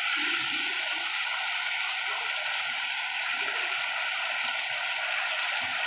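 Boneless chicken cubes in masala sizzling steadily in a nonstick frying pan while a spatula stirs them. The hiss is the water the chicken let out cooking off as the chicken is fried dry (bhuna).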